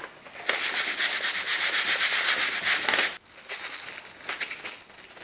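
Mixed fine and coarse stone-imitation inlay granulate trickling off a folded paper chute into a crack in the wood: a dense hiss of tiny grain ticks from about half a second in until about three seconds, then a few scattered ticks.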